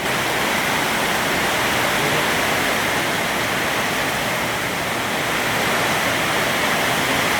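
Heavy rain pouring down in a storm, a dense, steady hiss with no breaks.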